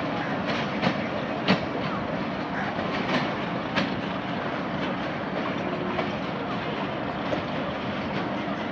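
Pakistan Railways express passenger coaches rolling past with a steady rumble, their wheels clicking over the rail joints. Sharp clicks come several times in the first four seconds, then thin out under the rumble.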